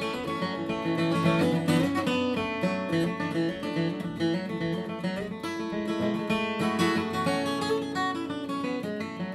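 Bourgeois Vintage D dreadnought acoustic guitar played solo and instrumentally, a steady run of picked notes mixed with strums.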